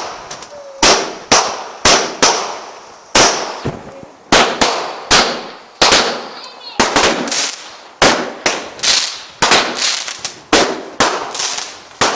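Fireworks going off in a long, rapid series of loud, sharp bangs, roughly two a second, each trailing a short echo. A brief faint whistle comes about six and a half seconds in.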